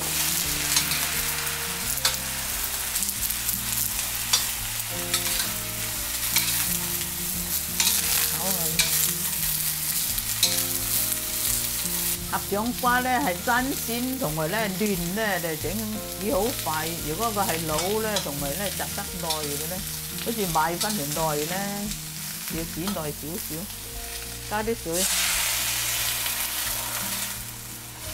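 Sliced chayote stir-frying in oil in a stainless steel wok: a steady sizzle, with the metal spatula scraping and clicking against the pan. A wavering pitched sound comes and goes through the middle. Near the end, water poured into the hot wok sets off a louder hiss.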